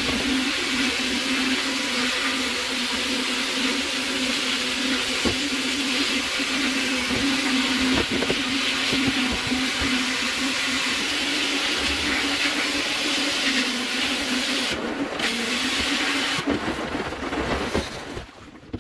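Shop-built vapour blaster's nozzle hissing steadily as it sprays water-and-abrasive slurry with compressed air onto an aluminium part, with a steady hum underneath. The blast breaks off briefly about fifteen seconds in, then dies away near the end.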